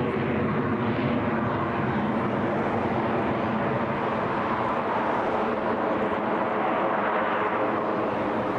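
Steady noise of jet aircraft engines, holding an even level throughout.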